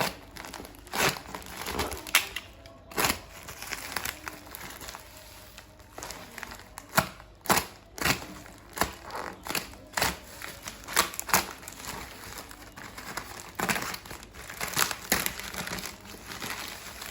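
Packaging being handled and opened: plastic and paper crinkling and rustling, with irregular sharp knocks and crackles.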